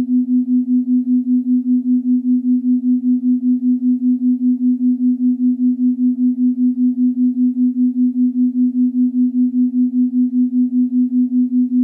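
A synthesized meditation tone: one steady low pitch pulsing evenly in loudness about four times a second, the pulsing of a binaural-beat style drone.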